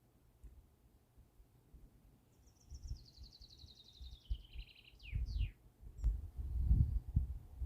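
A songbird sings one fast trill that steps down in pitch and ends in two quick down-slurred notes, over an irregular low rumble and thumping.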